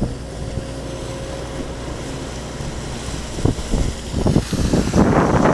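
Steady low rush of floodwater pouring out of a culvert through its forced-open floodgate, with wind buffeting the microphone in gusts that grow louder from about halfway through.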